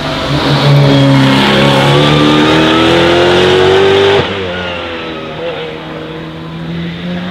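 Mercedes-AMG GT Track Series race car's twin-turbo 4.0-litre V8 accelerating hard past, its pitch climbing steadily for about three seconds. About four seconds in the engine note drops suddenly, and it then runs quieter as the car moves away.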